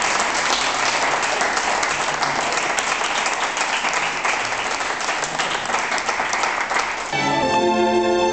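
Audience applauding steadily. About seven seconds in the clapping gives way as a string ensemble of violins and cellos starts playing.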